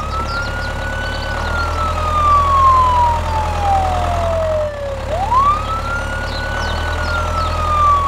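Ambulance siren wailing slowly: the tone rises quickly, falls gradually over about four seconds, then rises again about five seconds in. A steady low hum runs underneath.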